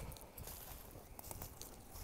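Footsteps crunching through dry fallen leaves as a person walks: irregular crackles over soft, dull thuds.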